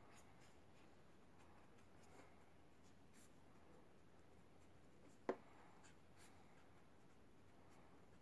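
Pen writing on lined paper: faint scratching strokes, with one sharper tick about five seconds in.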